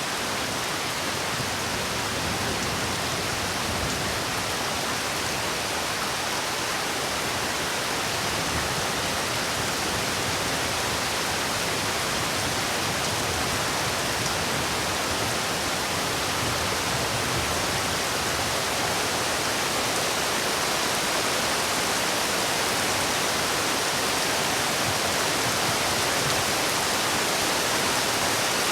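Heavy rain falling in a steady, even hiss with no separate drops standing out.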